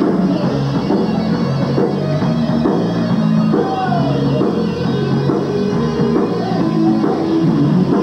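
Live rock band playing: electric guitars and drum kit together in a loud, steady rock song.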